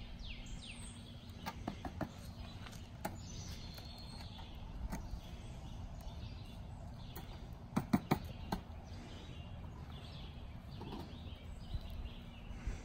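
Songbirds chirping over steady low outdoor noise, with scattered sharp clicks and knocks from a wire live trap being handled; the loudest cluster of knocks comes about eight seconds in.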